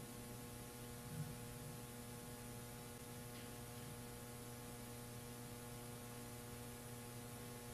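Steady low electrical mains hum, with faint even tones above it.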